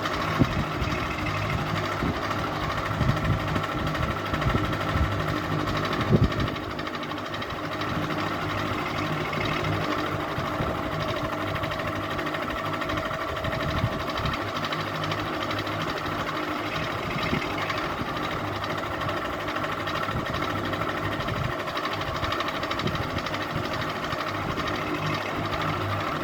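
Ceiling fan running with a steady motor hum and a fast mechanical rattle, with a few louder knocks in the first seconds, the loudest about six seconds in.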